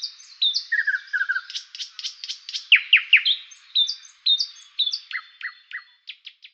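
Songbird chirping: a quick run of short whistled notes, trills and fast downward-sweeping calls.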